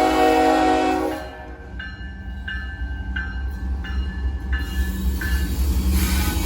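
A freight locomotive's air horn sounds a chord that cuts off about a second in, then the locomotive bell rings with a strike about every 0.7 s, over the steady low rumble of the diesel engine.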